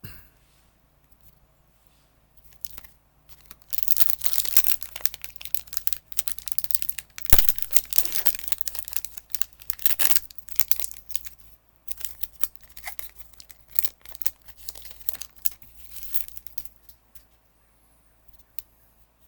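Foil wrapper of a Magic: The Gathering booster pack being torn open and crinkled. It crackles on and off for about thirteen seconds, with one sharp click about seven seconds in.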